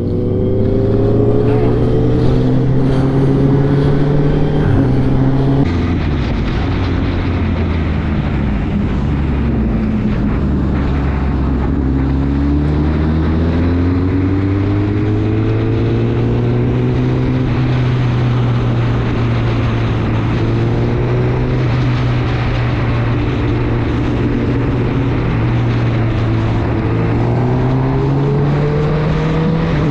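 Honda CBR1000RR SP inline-four sportbike engine running on the road, its pitch slowly falling and rising with throttle and speed, over steady wind and road noise. The engine note changes abruptly about six seconds in.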